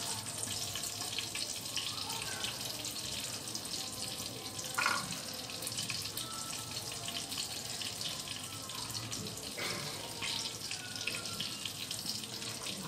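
Steady sizzle and fine crackle of stuffed eggplants frying in oil in a covered kadhai on a low flame. A brief clatter of handling comes about five seconds in.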